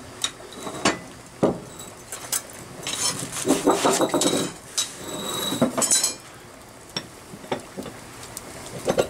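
Metal clanks and clattering as a hot cast-iron steam-engine piston is hooked out of a boiler firebox, set down on concrete and has its piston rod pushed into it. There are single sharp knocks throughout, and denser clattering a few seconds in and again around six seconds.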